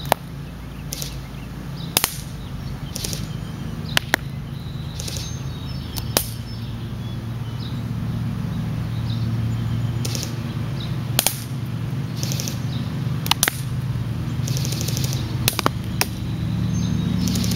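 Airsoft BBs fired from an A&K SR25 striking the plate carrier and the wooden board behind it: about fifteen sharp taps and cracks at irregular spacing, with a pause of about four seconds in the middle. A steady low hum runs underneath.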